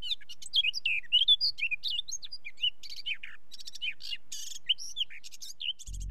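Several small birds chirping and singing, a busy stream of short rising and falling calls. A low musical drone comes in just before the end.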